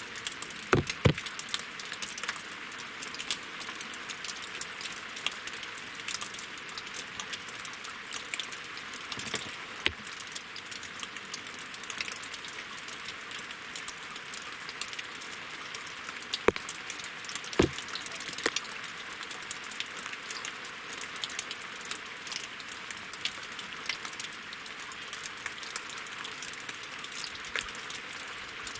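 Steady winter rain falling on a lake and on logs: a dense hiss of drops with many sharp individual patters, and now and then a louder drip.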